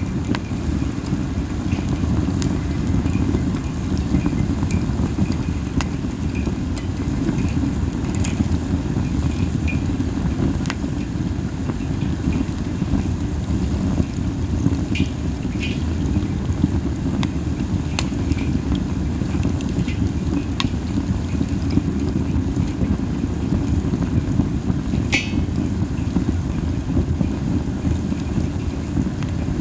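Pine-cone campfire burning hard, with a steady low fluttering roar of flame and wind and scattered soft crackles and pops every few seconds.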